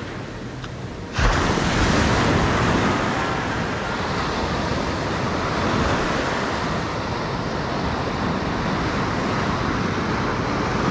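Ocean surf breaking and washing up the sand, a steady rush that swells suddenly about a second in as a wave comes ashore.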